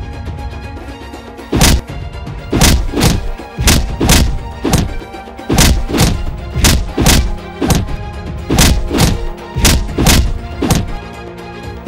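Cartoon fight sound effects: a rapid run of heavy impact hits, about two or three a second with a couple of short breaks, over steady background music.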